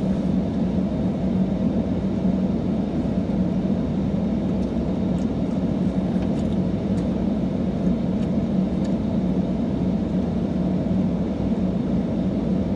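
Steady road and engine noise heard inside the cabin of a moving car, an even low rumble.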